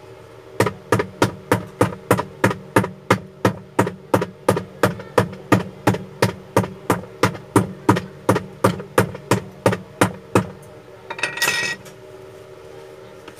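Shoemaker's hammer pounding a sandal's glued sole, about three to four steady blows a second for some ten seconds, to press the glued layers together. A brief scratchy noise follows near the end.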